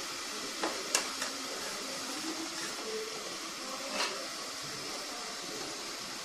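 Pot of foxtail millet rice boiling on the stove, a steady hiss with a few light clicks of a utensil against the pot, about a second in and again near four seconds; the millet is boiling up and nearly cooked.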